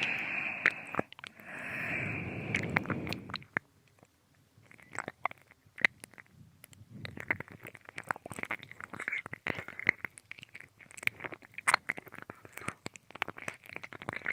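Close-up binaural ear-licking mouth sounds: wet licks, smacks and clicks, irregular and dense. The first few seconds carry breathy exhales, and there is a brief lull about four seconds in.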